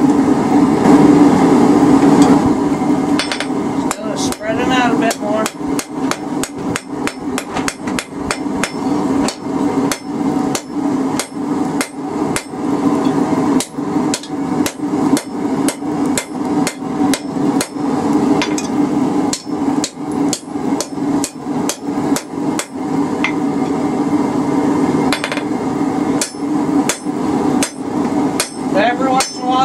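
Hand hammer striking hot steel on an anvil in a steady run of blows, about two to three a second, drawing out and spreading the bar flat. A steady hum runs underneath.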